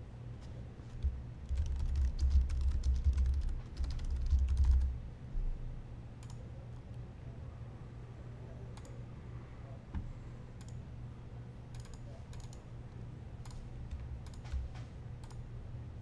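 Typing on a computer keyboard: a quick run of keystrokes for about four seconds, then a few scattered single clicks. A steady low hum runs underneath.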